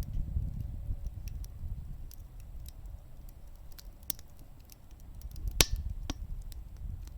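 Wood fire burning in a wood gas stove, crackling with scattered sharp pops, the loudest about five and a half seconds in, over a low rumble.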